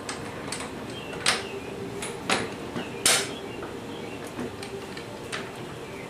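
Sharp metal clicks and a few short clanks and scrapes as the axle tensioner is worked by hand onto the end of a V-Rod motorcycle's rear axle, its flat spot being matched to the axle. The loudest clank comes about three seconds in.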